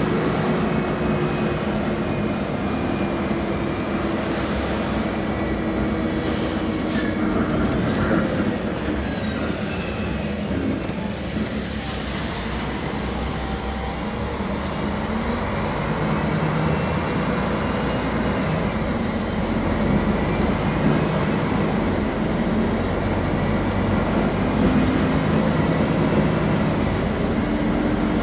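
Mercedes-Benz OM-457 LA inline-six turbodiesel of an articulated city bus running under way, its note falling over the first few seconds, easing off around the middle, then building again as the bus accelerates. A few light rattles are heard along with it.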